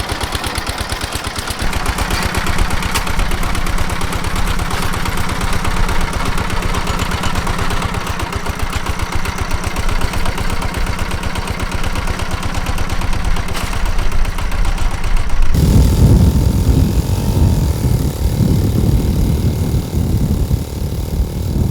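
Zubr walk-behind tractor's engine running steadily while its rotary tiller works the soil, with a rapid pulsing beat and some clatter. About fifteen seconds in, the sound changes abruptly to a heavy low rumbling, as with wind on the microphone.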